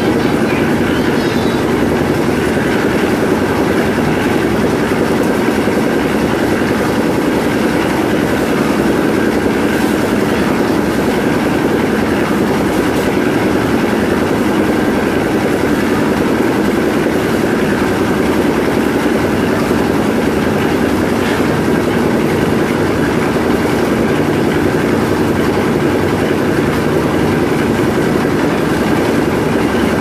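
Portable concrete mixer running steadily, its engine-driven drum turning with a continuous mechanical rattle as it churns a mix of cement, sand and stone.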